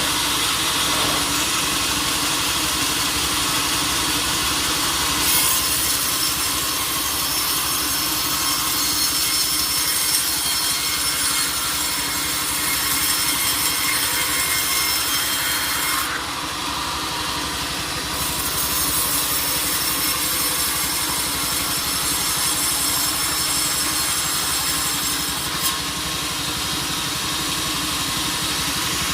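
Sawmill saw cutting through a teak log, a steady sawing noise with a strong high-pitched hiss. It eases for about two seconds past the middle, then comes back.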